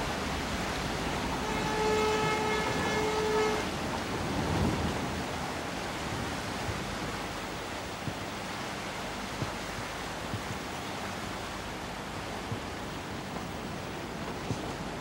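Steady rush of wind and sea noise aboard a coastal ship under way. About one and a half seconds in, a steady pitched tone, like a horn or whistle, sounds for about two seconds.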